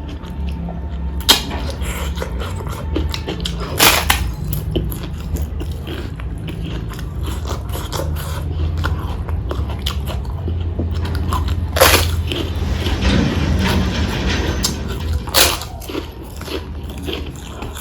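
Close-up eating sounds: a person chewing food, with many small wet clicks and four sharp, loud bites or crunches spread through. A steady low hum runs underneath.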